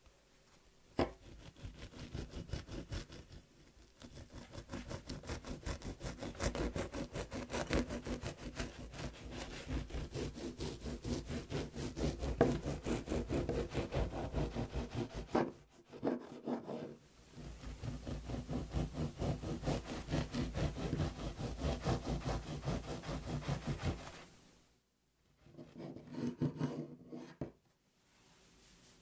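A serrated bread knife saws back and forth through a stack of white sandwich bread slices to trim off the crusts, the blade rasping on the crust. The quick strokes come in long runs with a few short pauses, and the last run near the end is shorter.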